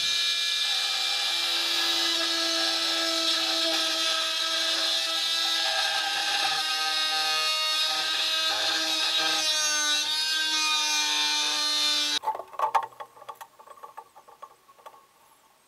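Handheld electric grinder running steadily as it grinds down fibreglass-tabbed foam tank mounts. Its pitch wavers and dips under load about ten seconds in, and the motor cuts off suddenly about twelve seconds in. A few light knocks follow.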